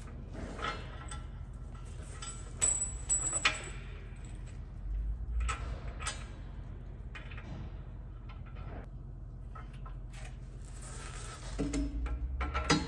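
Scattered metallic clinks and knocks of tools and bolt hardware being handled while a fender is bolted onto a sprayer, over a steady low hum.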